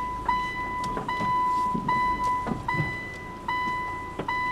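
A car's warning beep, a steady high tone broken by short gaps about every 0.8 s, as the car edges along or backs up on a narrow, rough track. A few faint knocks from the tyres on the ground lie under it.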